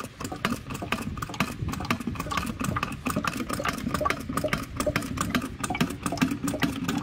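A motor running steadily, with a fast fine ticking over a low hum.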